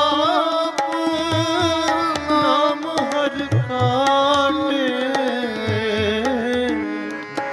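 Sikh Gurbani kirtan: a voice drawing out a long, gliding melodic phrase over a harmonium, with tabla strokes keeping a steady rhythm.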